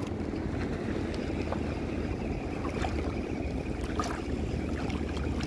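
Steady wind and gently lapping shallow sea water, with a few faint small ticks.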